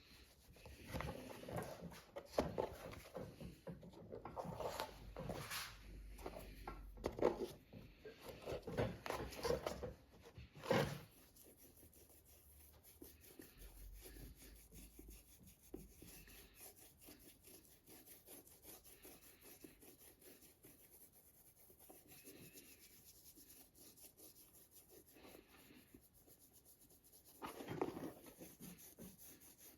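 Irregular rubbing and scraping strokes from hand work on a leather boot, busiest in the first ten seconds or so and then faint, with one more short scrape near the end.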